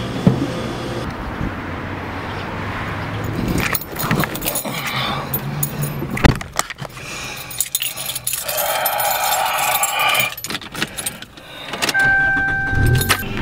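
Keys jangling, with a run of irregular clicks and knocks as someone handles them inside a car. Near the end a steady high tone comes on.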